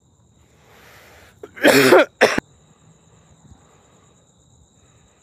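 A man coughs twice about two seconds in, a longer hard cough and then a short one, after a breathy intake.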